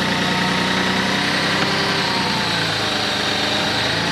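Kioti CK3510SE tractor's diesel engine running steadily under load as it pulls on a rope hitched to a buried rock, its pitch sagging slightly about two and a half seconds in.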